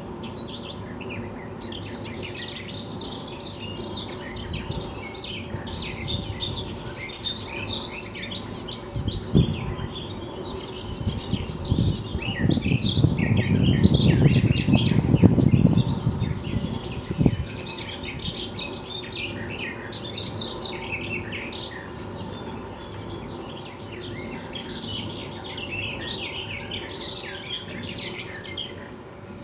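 Songbirds chirping continuously while the century-old funicular car runs up the track towards its upper station. The car's rumble on the rails swells to the loudest sound for a few seconds just before the middle and then fades, with a sharp knock before and after it.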